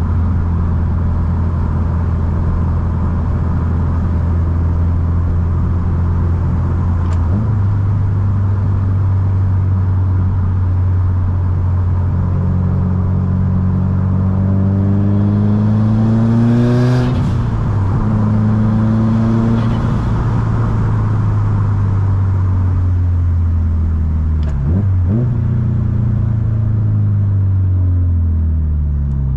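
Subaru STI's turbocharged flat-four engine running at a steady cruise, then accelerating with its pitch climbing, a gear change about halfway through marked by a brief hiss, and another climb. The note then levels off and falls in pitch near the end as the car slows.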